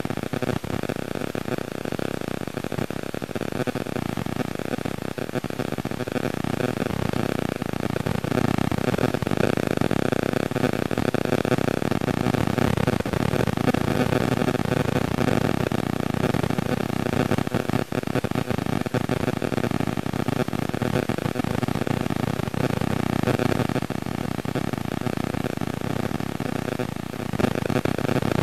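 Car engines running steadily at a car show, a continuous mechanical noise that grows a little louder after several seconds.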